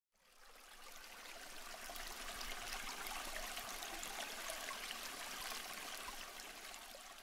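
Water running steadily, like a stream or a tap, fading in over about the first second.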